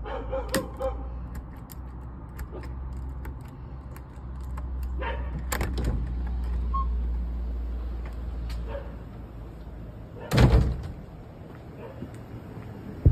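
Black timber garden gate being worked open by hand, with scattered clicks and knocks of the latch and boards over a low rumble, then one loud bang of the gate about ten seconds in.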